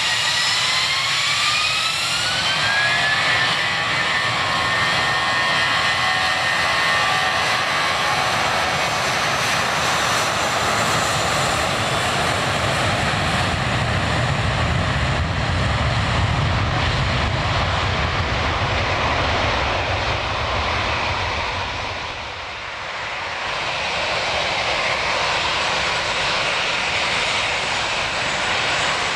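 Twin-jet airliner's turbofan engines spooling up to take-off thrust, with a whine that rises in pitch over the first few seconds and then holds, under a loud, steady jet noise with a deep rumble. The noise dips briefly near the end and then swells again.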